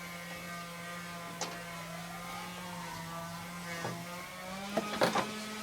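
Steady machine hum from a small motor running, which steps up slightly in pitch about four seconds in. Over it come a few light clicks, then a louder clatter of knocks near the end.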